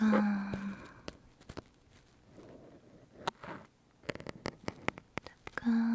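Close-up ASMR sounds of a thin tool poking and scratching on a foam-covered binaural microphone as a pretend injection: scattered sharp clicks and scratches. A short hummed tone sounds at the start and again near the end.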